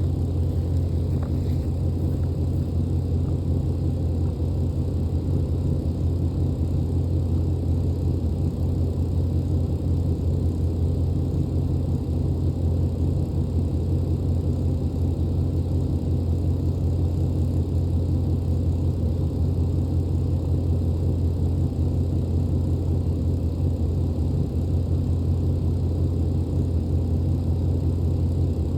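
An SUV engine idling steadily, a low even hum with no change in speed.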